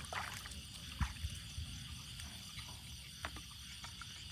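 Night chorus of frogs and insects, steady and pulsing, with a few short knocks and rustles from handling near the microphone.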